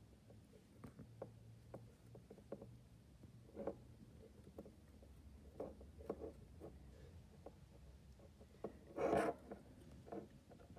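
Faint clicks and small scrapes of fingers working a brush spring and clip back onto the small electric motor of an American Flyer whistling billboard, over a faint steady hum. A louder rustle about nine seconds in.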